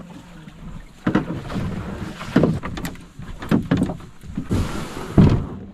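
Canoe being dragged over the ground and through brush: the hull scrapes and thumps irregularly, with several heavy knocks and leaves brushing along its side.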